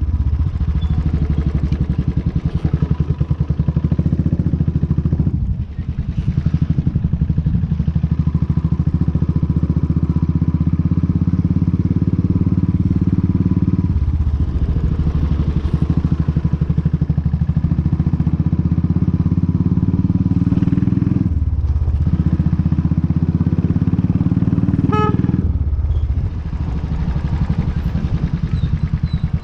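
Motorcycle engine running while riding, loud and steady with a fast throbbing beat. The engine note drops and changes about four times along the way, and a brief high tone sounds a little before the end.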